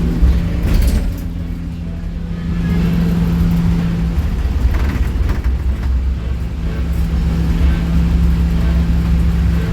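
Small city bus running, heard from inside: a steady engine drone with a low hum and rumble, crossed by a few brief rattles and knocks, the clearest just under a second in and another around five seconds in.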